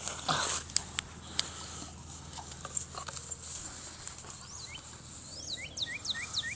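Rustling and a few sharp clicks in the first second and a half, then a songbird calling: a quick falling chirp followed by a short rising note, repeated about twice a second from about two-thirds of the way through.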